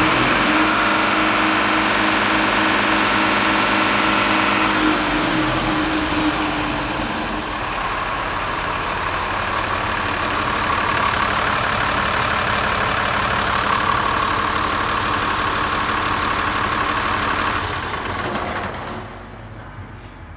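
Mercedes-Benz Unimog U500's six-cylinder diesel engine idling steadily on an engine test, first close to its upright exhaust stack, then over the open engine bay. The sound drops off sharply near the end.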